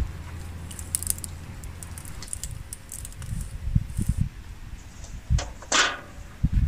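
A flat metal sheet laid over a brick fire pit as a lid: a few dull knocks about four seconds in, then a short, loud scrape of the metal sheet across the bricks near the end. Light high crackling is heard in the first seconds.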